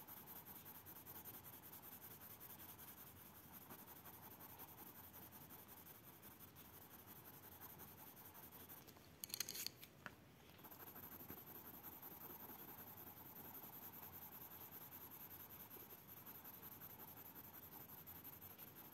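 Colored pencil shading on paper: a faint, steady scratchy rubbing of the lead on the sheet, which stops about nine seconds in for a moment with a couple of light taps, then goes on.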